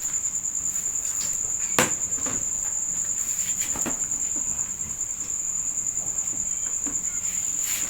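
A cricket chirping in a steady high-pitched pulsing trill, with a sharp click about two seconds in and a softer one near four seconds.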